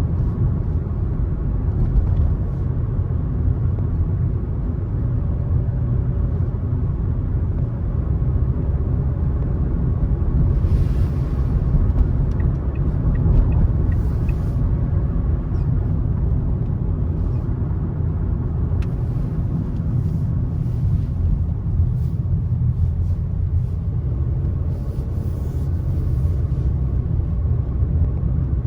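A car driving along a road: a steady low rumble of tyres and engine, with faint brief hisses and ticks now and then.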